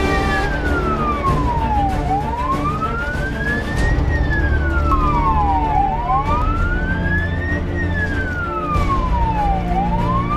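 Tatra fire engine's siren in a slow wail, rising and falling about every four seconds, over the truck's engine rumble.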